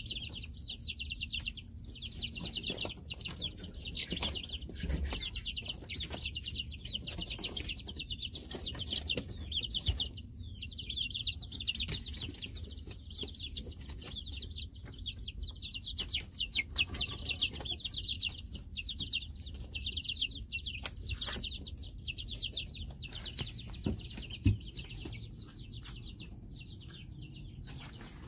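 A brood of young chicks peeping without pause, many rapid high cheeps overlapping, thinning out near the end. A single sharp knock sounds a few seconds before the end.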